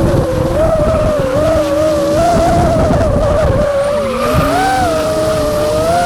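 Drifting car's tyres squealing in a wavering tone over the engine's low rumble.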